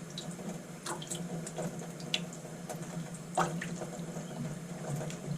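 Water running and dripping while squid is cleaned, with a steady low hum underneath and a few light clicks and taps from handling and knife work.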